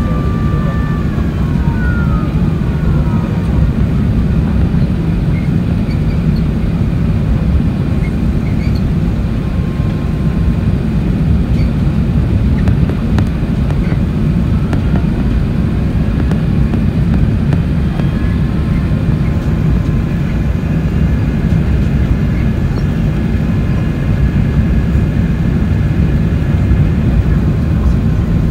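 Airbus A380 cabin noise on final approach: a steady deep rush of airflow and jet engines. Engine whine tones fall in pitch over the first few seconds, and a fainter whine rises in pitch around the middle.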